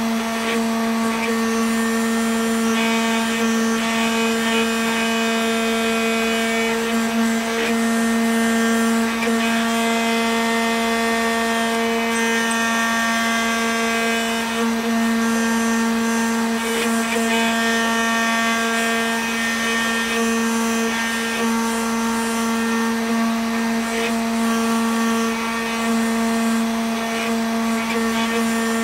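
Homemade CNC router's spindle running steadily as its engraving bit carves a block of candle wax: a steady motor hum with a fixed pitch and higher overtones, wavering slightly as the bit moves through the cut.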